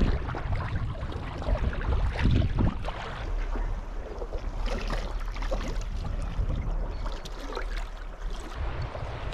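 Kayak paddling on open sea, with irregular water splashes from the paddle strokes over wind rumbling on the microphone.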